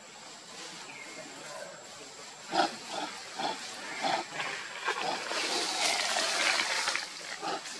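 Long-tailed macaques give a series of short grunts in a tree. A rustling hiss swells from about five seconds in and fades near the end.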